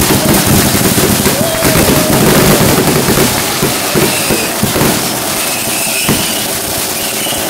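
Aerial fireworks going off in a dense, continuous barrage of shell bursts and crackling, thinning a little in the second half.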